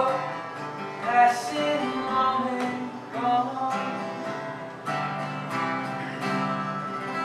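Solo acoustic guitar strummed slowly, about one stroke a second, with the chords ringing between strokes: the closing bars of a folk song.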